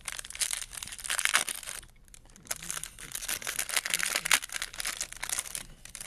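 Foil wrapper of a Topps Chrome baseball card pack crinkling and being torn open by hand, in two bursts of crackling, the second longer than the first, with a short pause between them.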